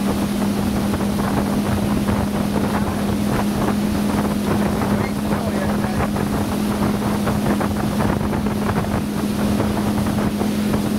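Motorboat engine running steadily at speed, a constant low hum, with wind buffeting the microphone and water rushing past the hull.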